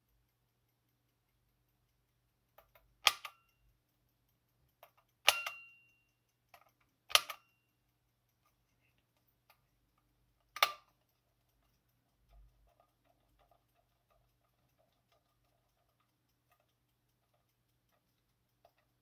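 Soviet AChS aircraft cockpit clock's knob and chronograph mechanism clicking sharply as its controls are pressed: four crisp clicks a couple of seconds apart, each with a lighter click just before it, then faint small clicks from the mechanism.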